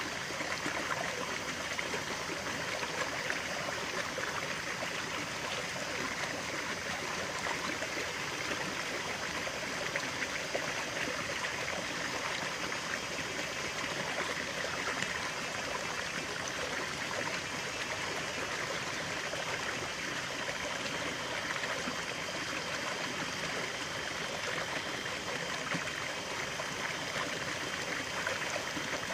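Water running steadily in a stream, a continuous even rush with a light trickling, babbling texture.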